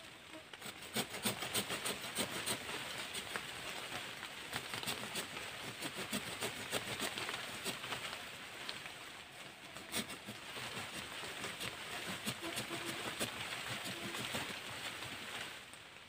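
Saw edge of a multifunction shovel rasping back and forth through a thin live bird cherry branch, a steady run of sawing strokes with leaves rustling and a brief pause about halfway.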